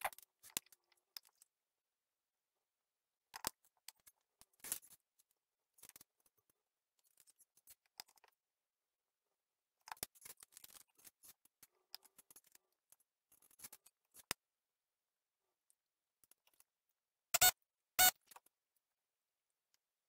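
Electronic parts and a small circuit board being handled on a rubber work mat: scattered faint clicks and rustles, then two sharp, louder clicks about half a second apart near the end.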